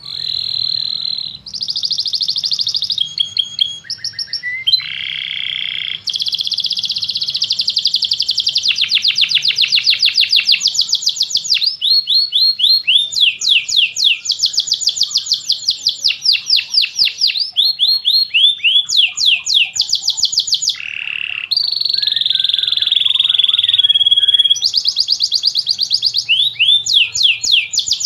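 Domestic canary singing a long unbroken song: rapid rolls of repeated sweeping notes, switching to a new phrase every few seconds.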